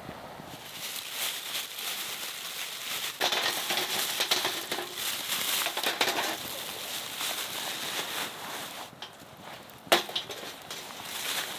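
Irregular crunching and rustling with many small crackles, busiest in the first half, and one sharp click about ten seconds in.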